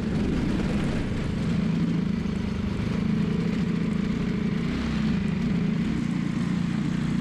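Briggs & Stratton LO206 single-cylinder four-stroke kart engine running steadily without revving up, heard from on board the kart. Its carburettor main jet is clogged with debris, leaving it starved and down on power.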